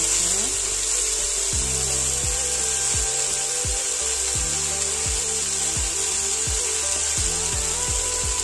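Background music with a steady beat and held bass notes over a steady high hiss, with a spatula scraping and stirring broccoli and mushrooms in a nonstick wok.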